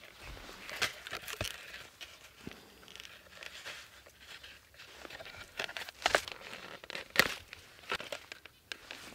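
Stiff birch bark being handled and flexed, crinkling and crackling, with a few sharper crackles about a second in and again around six and seven seconds in.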